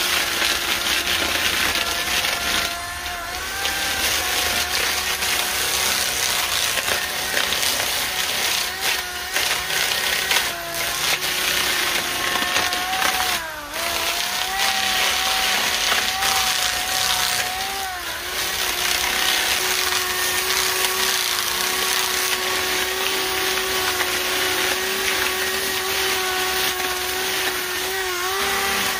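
Power-driven sanding mandrel wrapped with belt-sander paper, sanding the torch-burnt surface of hard arbutus wood. A steady motor whine over a rough sanding hiss, with the pitch dipping briefly as the disc is pressed harder, about halfway through and again near the end.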